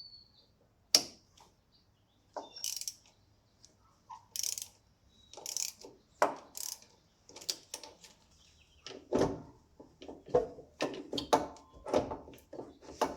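Ratchet wrench clicking in short irregular runs, with knocks of tools on metal, while a car's starter motor is being unbolted and pulled out. The bursts come more often in the second half.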